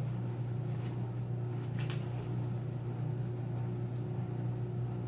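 Steady low hum in the room, with a brief handling noise from the folding light-box panels about two seconds in.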